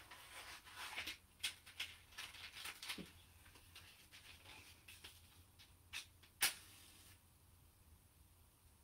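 Matches rustling and clicking in a small cardboard matchbox as it is opened and handled, then a match scraped twice against the box's striking strip about six seconds in, the second strike louder, as it is struck to light a candle.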